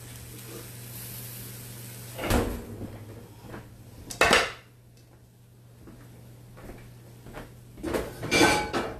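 Cast-iron skillet and ceramic plate clattering as biscuits are turned out of the pan onto the plate: a knock about two seconds in, a louder clack around four seconds, and a few more clanks near the end. A soft sizzle of cabbage in a skillet is heard at the start.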